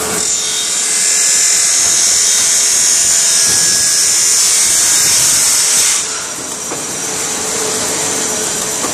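Turret lathe cutting a metal part: a loud, high-pitched hiss of the tool in the cut that ends about six seconds in, leaving the lathe running more quietly.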